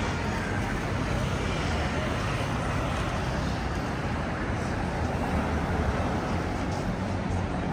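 City street traffic noise: a steady rumble of passing road vehicles, with people's voices mixed in.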